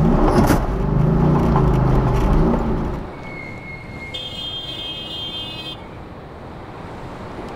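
Beast347 rally car's V8 engine running with the revs rising and falling, then dropping away about three seconds in to a steady hiss. After that a thin high tone sounds briefly, followed by a short, higher buzzing tone.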